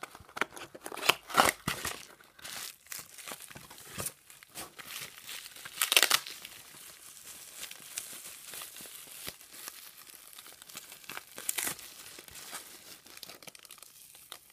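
Packaging being unwrapped by hand: a small cardboard box torn open, then bubble wrap and a thin plastic bag crinkling as a small figure is taken out. The rustling is uneven, with the loudest tearing and crinkling about a second in and again around six seconds in.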